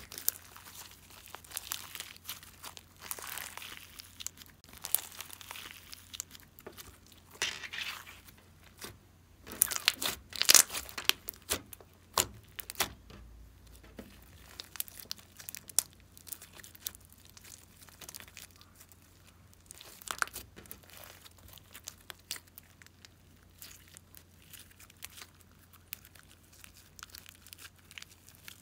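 Hands squeezing and stretching pink slime, making irregular sticky crackling and clicking. The crackling is densest and loudest about ten seconds in, then grows sparser.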